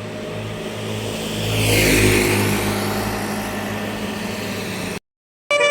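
A large road vehicle, likely a tour bus, driving past: engine and tyre noise swell to a peak about two seconds in and then fade. The sound cuts out abruptly about five seconds in, and right at the end a multi-tone musical horn starts to play.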